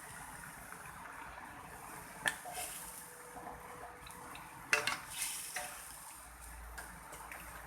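Utensil and vegetable pieces knocking and scraping in a cooking pot, with two sharp clinks about two and a half seconds apart and softer knocks after each, as potatoes and carrots go into a chicken curry.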